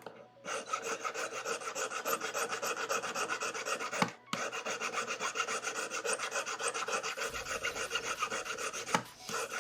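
A hand file rasping against the side of a metal ring in quick, even back-and-forth strokes, several a second, evening out the sides of the shank. There is a brief pause about four seconds in.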